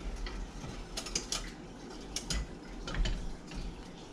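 Scattered light clicks and knocks of a nonstick wok being handled and tilted on an electric coil burner to swirl the heating oil.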